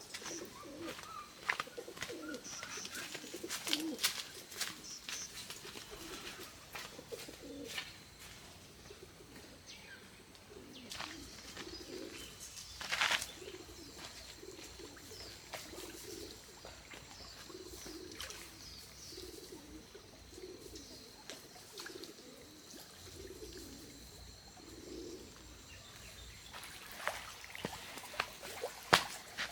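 Birds calling in a string of low, soft notes repeated about every half-second, with scattered sharp clicks and taps; the loudest tap comes about 13 seconds in.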